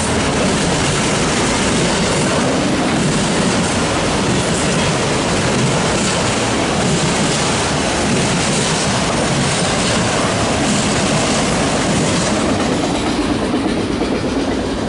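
Freight train of autorack cars rolling past: a steady rumble with the clicking of steel wheels on the rails. It fades near the end as the last car goes by.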